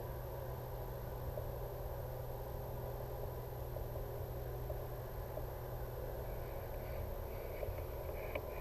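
Quiet woodland ambience: a steady low rumble and hiss, with a few faint, short, higher-pitched sounds near the end.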